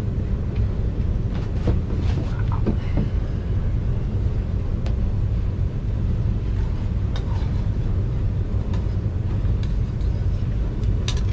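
Low, steady rumble of a train running across the river, with a few light clicks over it.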